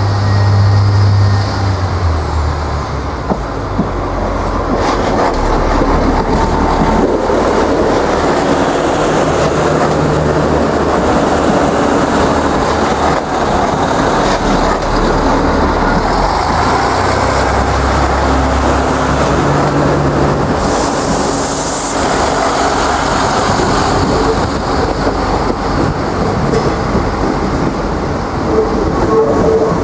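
Irish Rail 29000 class diesel multiple units running slowly through the station throat, with the steady drone of their diesel engines and the rumble of wheels on the rails. The engine note steps up and down several times. A short hiss comes about two-thirds of the way through.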